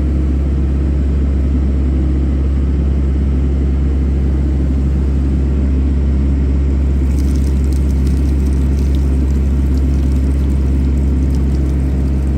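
Excavator's diesel engine running at a steady, low drone, with faint light clicks and rattles joining from about seven seconds in.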